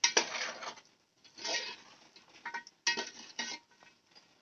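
Metal spatula scraping and stirring spice-coated mutton pieces against the inside of a steel pot as they fry, in four or five short bursts with brief pauses between them.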